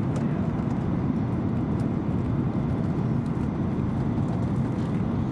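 Cabin noise inside an SAS Airbus A330-300 airliner on final approach: a steady low rumble of engines and airflow, with no change in level.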